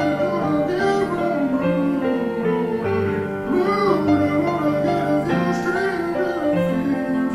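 Ballad music: a wavering lead melody over long held bass notes.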